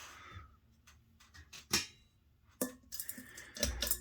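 Sharp clicks and knocks of a Thomas Industries T2 hugger ceiling fan being handled as its reverse switch is flipped. A low steady hum comes in near the end.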